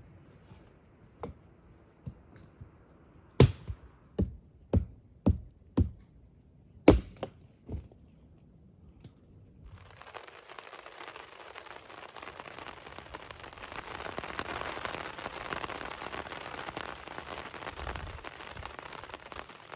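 Dry wood cracking in a string of about ten sharp snaps over the first nine seconds. Then a steady hiss sets in, typical of heavy rain falling on the woodland and tarp.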